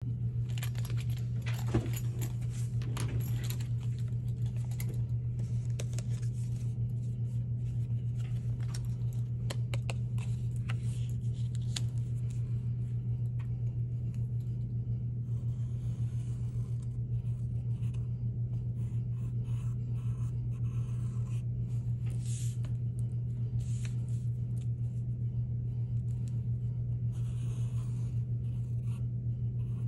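Pencil scratching on paper while a cardboard stencil is traced, with light rustles and taps of the paper and card. A steady low hum runs underneath.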